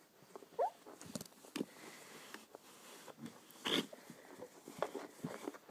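Poodle puppy scrabbling and pawing under a couch, with scattered scratches and knocks, a short rising whine about half a second in, and a louder scuffing burst a little before the four-second mark.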